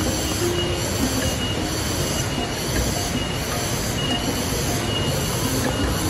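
Loud chorus of cicadas buzzing in pulsing waves, about two a second, over a steady rush of falling water.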